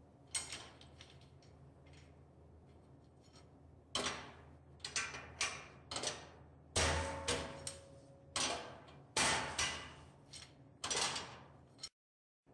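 Steel balusters being set one after another into the grooves of a steel railing welding jig: a dozen or so sharp metal clanks, starting about four seconds in, some ringing briefly.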